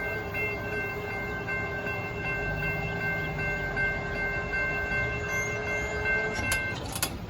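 Amtrak Texas Eagle passenger locomotive's horn held in one long steady chord over the low rumble of the passing train, cutting off near the end.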